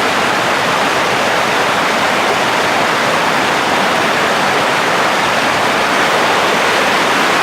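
Waterfall water rushing steadily: an even, unbroken hiss of falling water with no changes.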